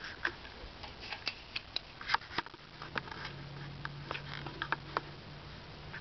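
Irregular sharp clicks, typical of the detents of a 1983 Hitachi TV's rotary channel-selector knob being turned. A steady low hum comes in about three seconds in.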